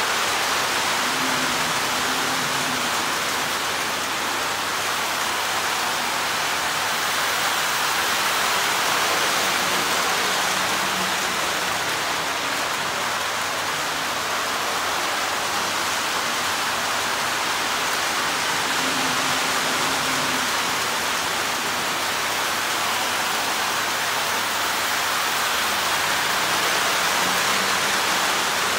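Lionel O-gauge tinplate trains running on three-rail steel track, a steady rushing rumble of wheels and motors. It swells slightly now and then.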